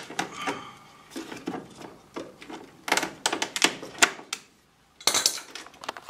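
Channellock pliers working a pinch-type hose clamp onto a furnace condensate drain hose: a run of irregular metal clicks and clacks.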